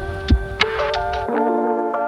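Electronic background music: sustained synth chords over a steady beat, with the bass dropping out a little past halfway.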